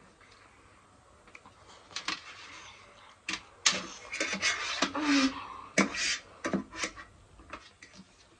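Close-up eating sounds of noodles: a run of sharp mouth clicks, smacks and slurps while chewing. Forks click and scrape on a metal baking tray, and the sounds are thickest a few seconds in.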